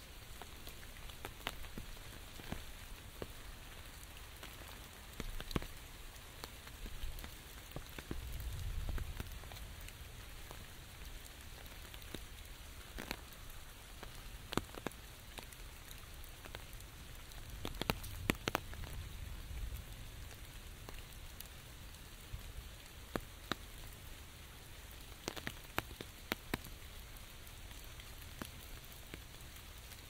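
Steady rain falling on an umbrella overhead, a constant hiss with scattered sharp ticks of single drops striking the canopy. A low rumble swells twice, about eight and eighteen seconds in.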